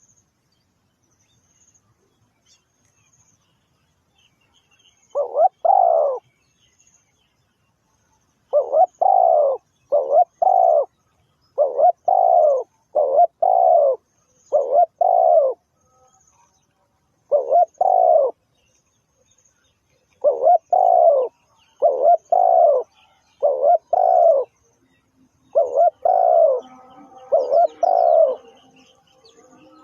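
Spotted dove cooing: a run of low coos in short phrases of two to four notes, starting about five seconds in, with pauses of a second or two between phrases.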